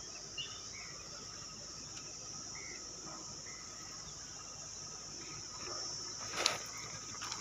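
A steady, high-pitched insect chorus of crickets fills the forest, with a few short chirps. A sharp click sounds about six and a half seconds in, louder than the rest.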